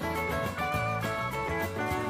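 Background music: an acoustic guitar-led, country-style tune with a steady beat.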